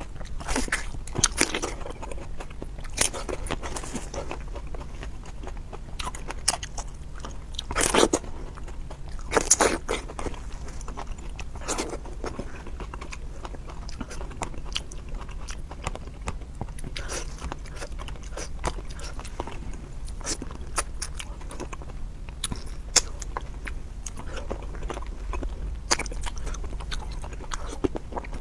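Close-miked eating: a person biting and chewing food, with many irregular wet crunches and clicks, a few louder bites among them, over a faint steady low hum.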